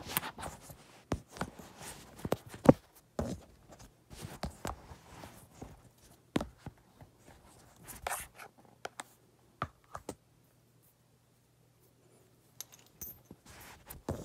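Hands handling a tablet and its keyboard case over cardboard packaging: irregular clicks, knocks and scrapes of plastic and cardboard, with one sharp knock about three seconds in and a pause of a couple of seconds near the end.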